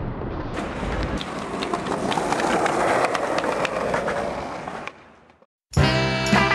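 Skateboard wheels rolling on pavement: a steady rolling rumble with many scattered clicks, fading out about five seconds in. Music with a steady beat starts near the end.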